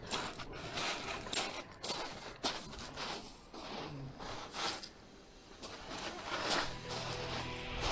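Irregular rustling, crinkling and clicking of fishing tackle and bait being handled while a rig is made up. Soft background music comes in near the end.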